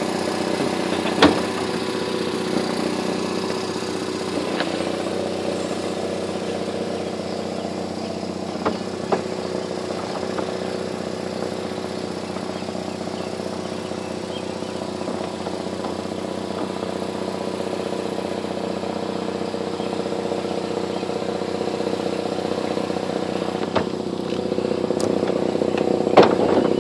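Bucket truck's engine running steadily, powering the boom's hydraulics as the bucket is raised and lowered, with a few short knocks.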